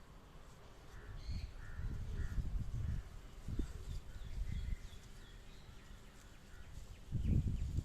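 Crows cawing a few times and small birds chirping, over low rumbling buffets on the microphone that come and go in three spells.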